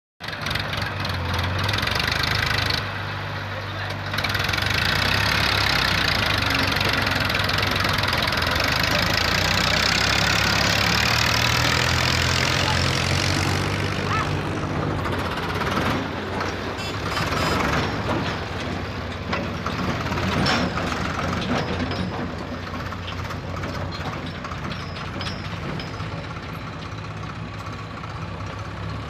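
Heavy diesel engine of a tractor or backhoe loader running steadily. A louder, higher hissing rush sits over it for about ten seconds in the first half.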